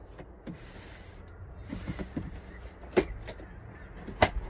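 A cardboard shipping box being opened by hand: scraping, rustling noise of the cardboard in the first two seconds, then two sharp knocks against the box about three and four seconds in.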